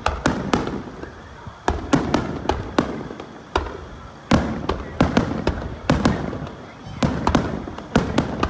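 Aerial firework shells bursting overhead in a rapid, irregular string of sharp bangs, about two or three a second.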